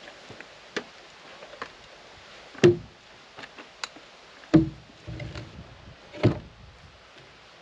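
Knocks and thuds of a short log section being handled against a log wall and an aluminium stepladder: three loud knocks a little under two seconds apart, the first the loudest, with lighter clicks in between.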